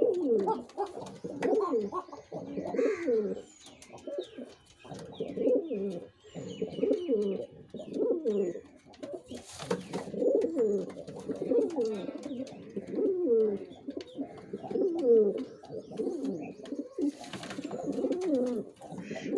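Male domestic pigeon cooing over and over, a string of low falling coos repeated steadily, the courtship coo of a displaying male.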